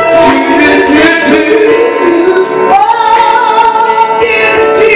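A woman singing gospel into a microphone, with music behind her; about halfway through her voice slides up and holds a long high note.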